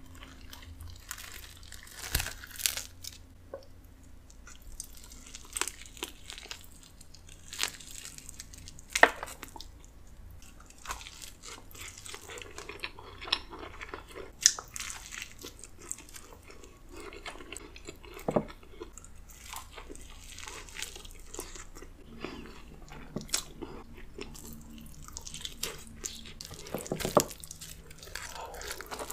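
Eating a whole roast chicken: skin and meat torn apart by hand, bites and chewing, with irregular crunches and crackles from the crispy skin.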